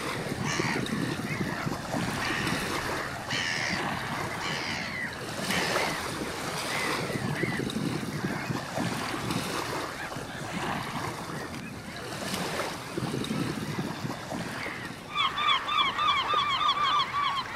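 Water lapping and splashing at the surface. About fifteen seconds in, a gull begins calling in a rapid series of short, sharp cries.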